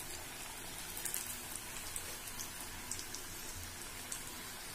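Samosas deep-frying in hot oil in a kadai: a steady sizzle with scattered small crackles.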